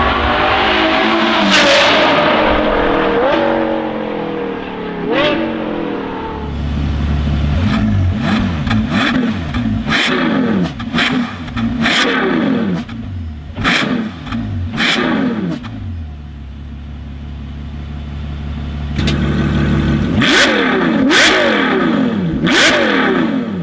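Ferrari GTC4Lusso with a Novitec aftermarket exhaust, first driving under power, its engine note falling away. Then the parked car idles steadily and is blipped in a string of quick free-revs, each rising and dropping fast with sharp cracks from the exhaust. The revs come in two runs with idle between them.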